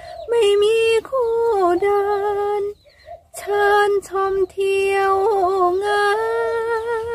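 A woman singing a Thai song unaccompanied, holding and sliding between sustained notes, with a short pause about three seconds in and a long held note near the end.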